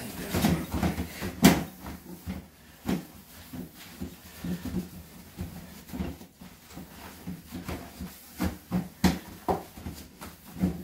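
Cloth wiping the inside of a clear plastic storage tub: irregular rubbing and light knocks of the plastic, with one louder knock about a second and a half in.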